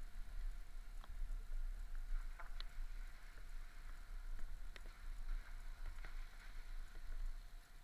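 Light rain: scattered drops ticking faintly over a low rumble.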